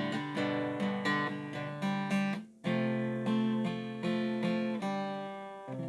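Acoustic guitar strumming chords in the instrumental close of a song, with a short break about halfway through and a new chord struck near the end that rings on.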